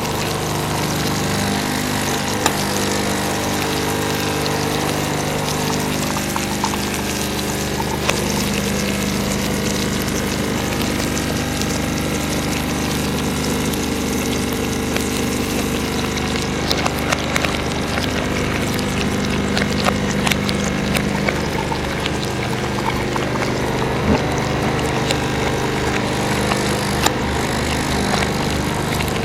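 Mackerel frying in hot oil: a continuous sizzle with scattered pops and crackles, over a steady mechanical hum.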